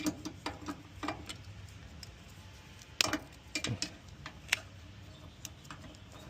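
Scattered small clicks and taps from handling the washer's wire harness while wrapping it in tape, the sharpest about three seconds in, over a low steady background hum.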